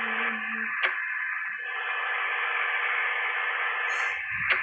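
Steady hiss held to a narrow middle band, with a sharp click about a second in and a quick run of clicks near the end.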